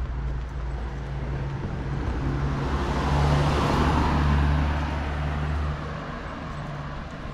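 Street traffic: a motor vehicle's engine running close by, its noise swelling to a peak about halfway through and easing off as it passes, the deep engine hum dropping away near the end.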